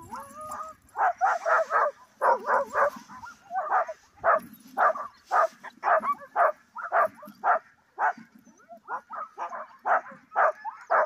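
Alaskan huskies in a sled team barking and yipping over and over, about two barks a second, with a short rising whine at the start. The team is halted, and the dogs are calling while they wait to run on.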